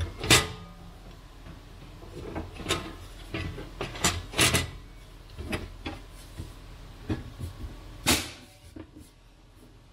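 Sheet-metal access cover of an HP EliteDesk 800 G1 small-form-factor computer case being lowered onto the chassis and slid shut: a run of metal knocks and scrapes, the sharpest about a third of a second in, around four seconds, and about eight seconds in.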